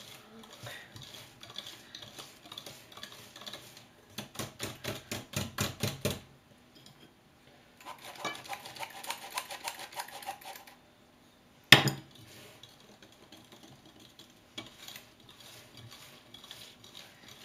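Wire whisk beating batter in a glass bowl: fast, evenly spaced strokes clinking against the glass, loudest for about two seconds from four seconds in, fainter scraping strokes elsewhere. About eight seconds in, a hand-cranked metal flour sifter rattles over the bowl for about three seconds, and a single sharp knock comes near twelve seconds.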